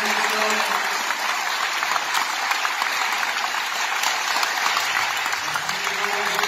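Audience applauding steadily, the clapping of a full hall.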